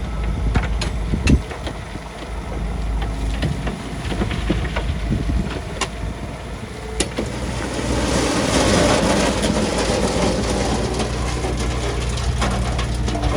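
Heavy diesel earthmoving machinery running steadily, with scattered metallic clanks and knocks and a rushing noise that swells about two-thirds of the way in and lasts several seconds.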